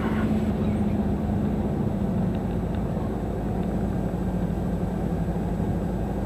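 Cessna 172 Skyhawk's four-cylinder Lycoming engine and propeller running at low power, heard inside the cabin as a steady drone, while the plane rolls out on the runway just after landing.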